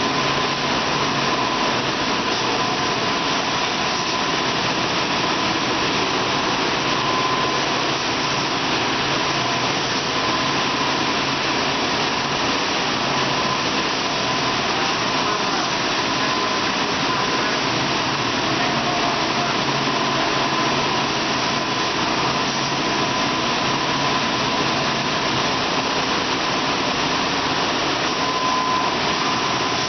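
43-inch triple-head widebelt sanding line running steadily: an even machine noise with a thin, steady whine.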